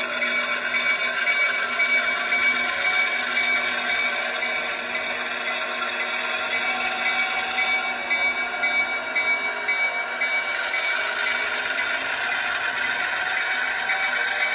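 Steady diesel switcher engine sound from an ESU LokSound decoder in an HO scale Athearn switcher, played through the model's small speaker as the locomotive creeps slowly along the track.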